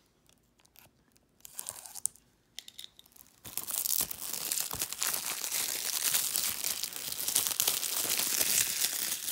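Plastic shrink wrap on a Blu-ray case being slit with a utility knife, a few faint scratches and clicks, then from about three and a half seconds in, loud continuous crinkling and tearing as the film is peeled off and crumpled in the hands.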